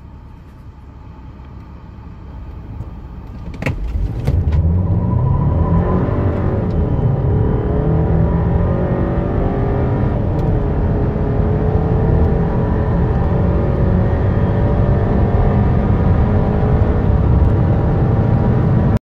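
Car engine accelerating hard from a standstill, heard inside the cabin: quiet at first, it gets loud about four seconds in as the car pulls away, and its note climbs in pitch as the car gathers speed.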